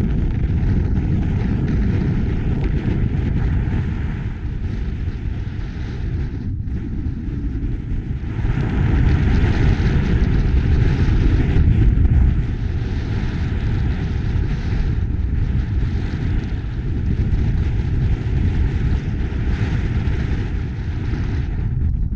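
Strong storm wind buffeting the microphone: a loud, steady low rumble of blowing wind, with a stronger gust from about eight seconds in that eases off a few seconds later.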